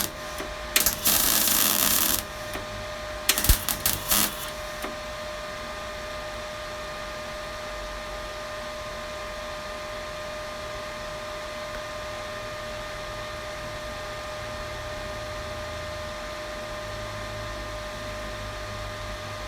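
MIG welder tack-welding steel car body panels: one crackling burst of about a second and a half near the start, then a few quick short tacks about three and a half seconds in. After that a steady workshop hum with a faint thin whine.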